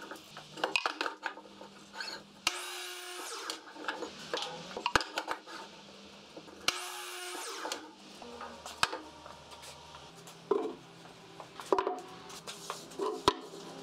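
Miter saw cutting 2x4 lumber, two short cuts of about a second each, with knocks and clatter of boards being handled and set in place between and after them.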